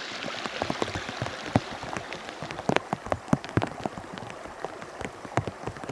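Steady rain falling on a pond's surface, with many irregular sharp taps of single drops landing.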